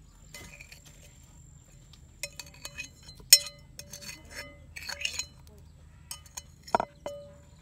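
Cookware clinking: a run of light irregular clicks and taps, a few with a brief ringing tone, starting about two seconds in. A thin steady insect chirr is heard over the first couple of seconds.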